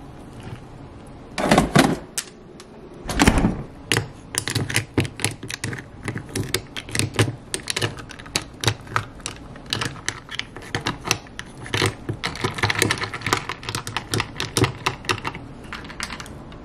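Ice cubes clinking and rattling against a glass jar as an iced drink is stirred with a straw, many quick irregular clinks. Two louder clatters come about a second and a half and three seconds in.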